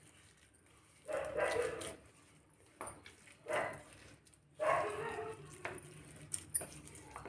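A dog barking in three bouts: about a second in, around three and a half seconds, and again near five seconds.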